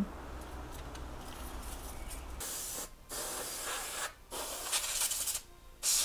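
Canned compressed-air duster sprayed in four short hissing blasts at a graphics card's fans, the first about two and a half seconds in.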